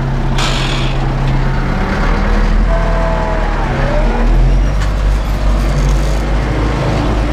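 URSUS 914 tractor's diesel engine running under load, heard from inside the cab. About two seconds in, the engine note deepens and grows heavier.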